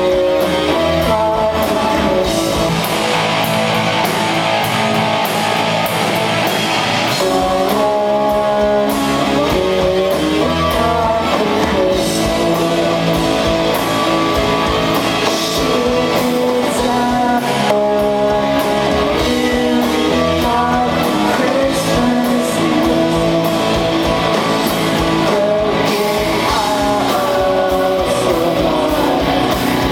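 Rock band playing a song live at a soundcheck, with singing over electric guitars and a drum kit at a steady, loud level.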